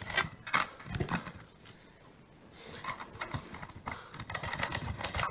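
Small metal clicks and clinks of washers and nuts being handled and fitted onto bolt ends through a wooden swing seat. A cluster of clicks comes at the start, a quiet stretch follows, and a run of quick, irregular clicks comes from about three seconds in.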